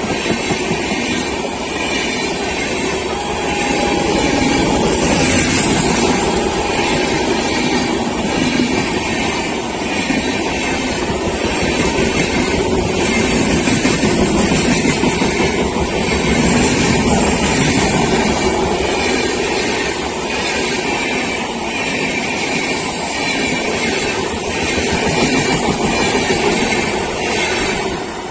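Passenger train hauled by a WAP7 electric locomotive running past at speed: a steady rush with a regular clatter of wheels over rail joints, about once a second. The sound drops away sharply at the very end as the train clears.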